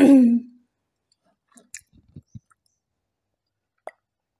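A woman's short vocal sound trails off at the start, then it goes quiet except for a few faint mouth sounds of eating, and a single small click near the end as a glass mug of water is raised to drink.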